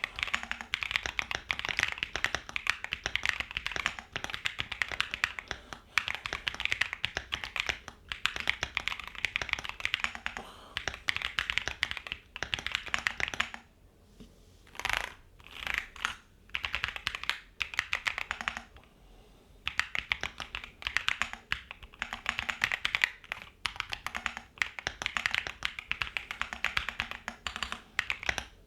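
Typing on a Keychron Q2 Max mechanical keyboard with Gateron Jupiter Banana switches: fast, continuous key clacks in runs, with a stretch of a few single, spaced keystrokes about halfway through before the fast typing resumes.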